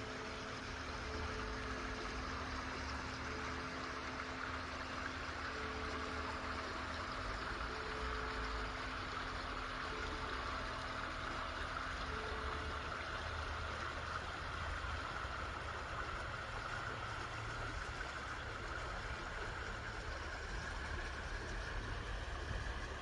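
Water splashing steadily. Faint church bells ring through the first half, their repeating tones dying away about halfway through.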